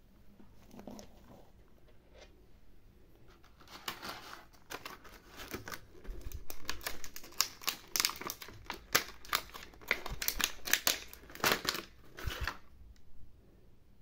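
Clear plastic packaging crinkling and crackling in the hands as a small toy is unwrapped. The crackling begins about four seconds in and stops shortly before the end.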